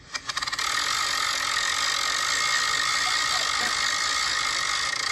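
Phone spinner-wheel app playing its spinning-wheel sound through the phone's speaker: a fast ratchet-like ticking that starts as separate clicks and quickly blurs into a steady rattle.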